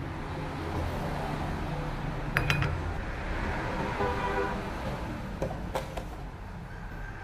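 Light clinks of kitchenware against a cooking pot as rice and salt are tipped in: a short cluster about two and a half seconds in and a few more near six seconds, over a steady low rumble.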